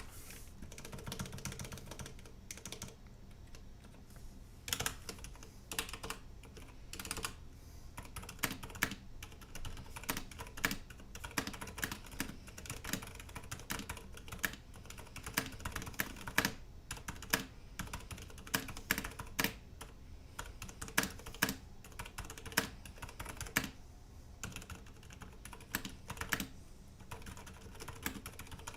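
Typing on a mechanical keyboard fitted with Cherry MX Silent Red switches: quick, irregular keystrokes with short pauses between runs.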